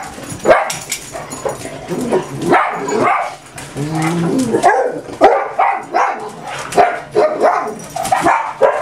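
Dogs barking, short barks following one another at roughly two a second.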